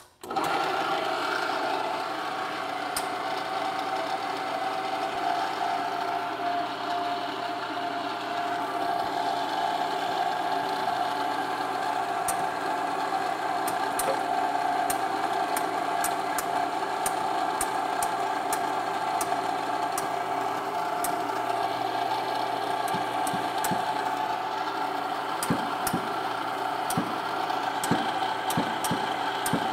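Powered shop press running with a steady motor hum as its ram pushes a cam-bearing installer down, pressing a cam bearing into an engine block bore. Light clicks join in from about halfway.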